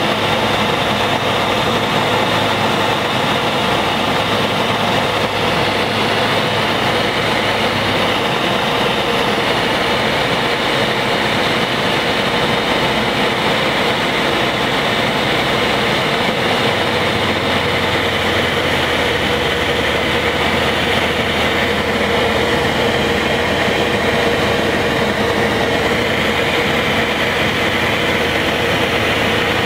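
A light aircraft's piston engine and propeller droning steadily with wind noise, heard inside the cockpit on final approach to land. The low engine note shifts twice along the way.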